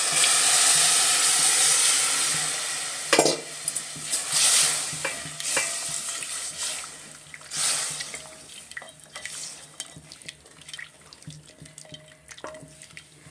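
Water poured into a hot pot of frying chicken and vegetables, splashing and sizzling loudly at first. Then a spoon stirs and clicks against the pot as the sizzle dies down.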